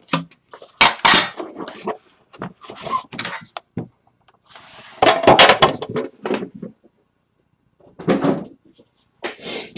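Metal trading-card tin being opened by hand: the lid is pulled off and set aside, and the card box inside is worked out of its foam insert. The handling makes a run of short knocks, clicks and scrapes of tin and cardboard, with a longer scrape about five seconds in.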